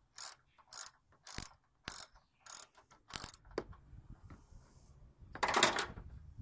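Socket ratchet clicking in regular strokes, about two a second, as a 10 mm bolt is backed out; the strokes stop about three seconds in. Near the end comes one louder, noisy sound lasting about half a second.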